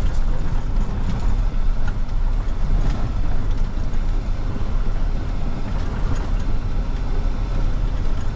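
A work truck driving slowly over a rough gravel road: a steady low rumble of engine and tyres on gravel.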